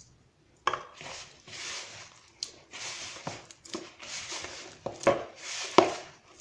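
Hands working soft, freshly wetted bread dough together in a mixing basin: a rhythmic squishing and slapping, about one to two strokes a second, with a few sharp knocks against the basin.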